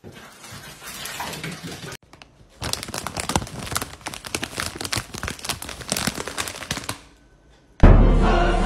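Plastic snack bag of Cheetos crinkling rapidly as a hand handles it, for several seconds. Near the end, loud music cuts in suddenly.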